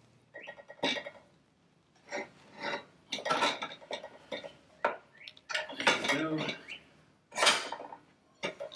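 Irregular knocks and metallic clinks as a motorcycle rear wheel is lifted and worked into place between the swingarm arms, parts bumping against each other as it is positioned.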